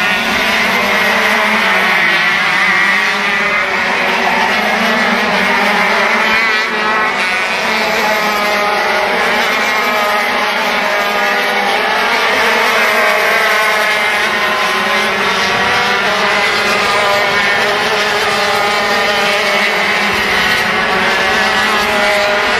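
Several racing kart engines running at high revs together, their overlapping pitches rising and falling continuously as the karts accelerate and lift through the corners.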